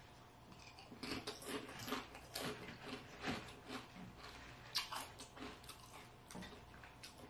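A person chewing food close to the microphone: faint, irregular soft smacks and clicks, a few each second, dying away near the end.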